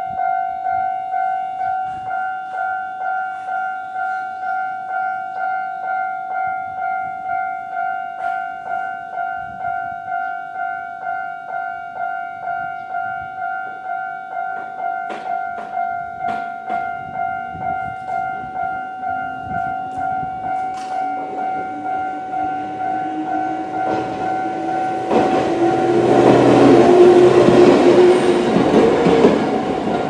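Japanese level-crossing alarm sounding its electronic bell in a steady, even rhythm, at its normal volume setting. In the second half a Choshi Electric Railway 2000-series train approaches with a slowly rising whine. Near the end its wheels rumble and clatter loudly over the track at the crossing.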